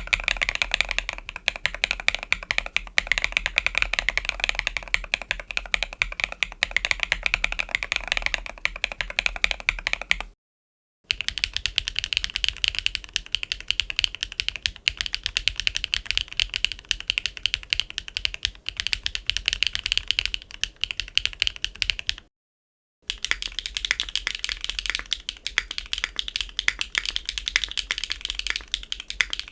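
Steady typing on a mechanical keyboard with HMX KD400 linear switches, with dense key clacks. It comes in three runs split by short silent breaks, each run a little different in tone.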